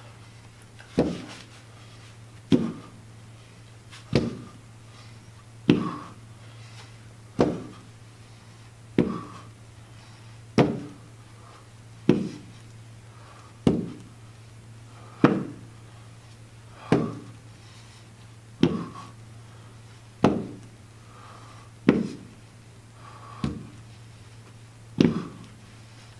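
Dumbbells knocking down onto a hard floor in a steady rhythm, about one knock every second and a half, as each is set back down between alternating plank rows. A steady low hum runs underneath.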